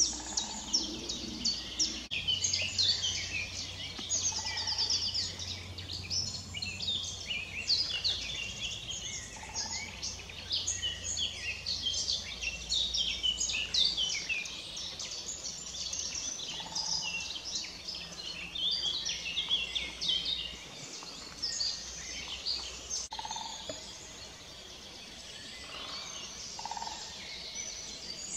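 Dense chorus of many songbirds singing at once, overlapping chirps and trills, with a few short lower notes every few seconds. A faint low rumble runs under it for much of the time.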